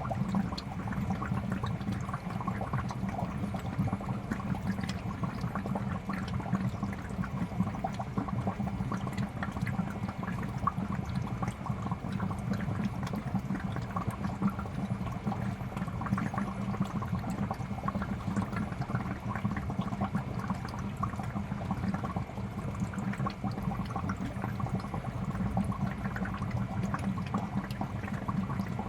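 Fish tank water bubbling steadily: a dense, continuous stream of small bubble pops over a steady low hum.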